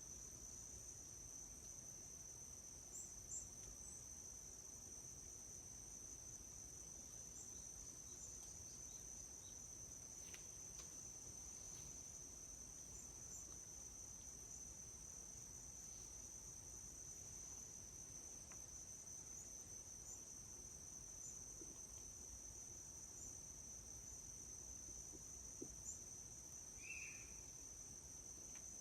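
Insects trilling steadily at a high pitch in a forest, faint overall, with a single short chirp near the end.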